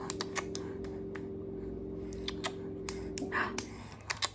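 Light, irregular taps and clicks of hands on a stone countertop, over a steady electrical hum that cuts out about three and a half seconds in.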